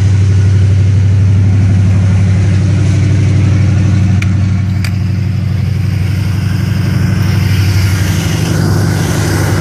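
Motorhome's 454 big-block V8, fitted with headers, idling with a steady low drone. Two light clicks come about four and five seconds in.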